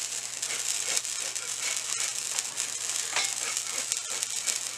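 Lit handheld sparkler fizzing with a steady crackle, with occasional puffs of breath blown at it to try to put it out.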